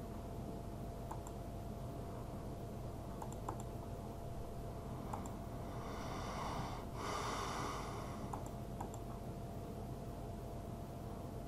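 Computer mouse clicking a few times, singly and in quick pairs or threes, over a steady electrical hum with a constant tone. A brief louder rush of noise comes around the middle.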